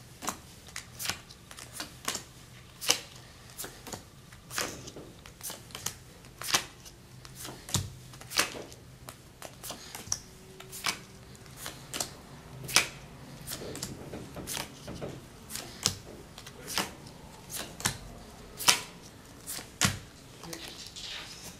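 Playing cards dealt one at a time from the hand onto a pile, each giving a short, sharp click, unevenly spaced at about two a second.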